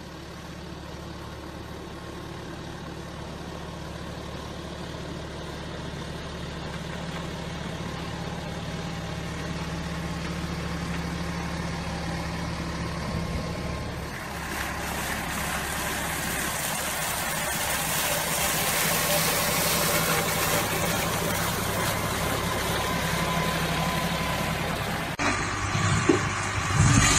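A large machine's engine running steadily under a rising hiss of mechanical noise, which grows louder about halfway through, then cuts off abruptly near the end.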